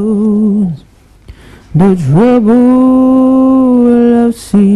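A solo voice singing slow, long held notes with vibrato and no accompaniment. A note ends just after the start, a long note is held from about two seconds in, and another begins after a brief break near the end.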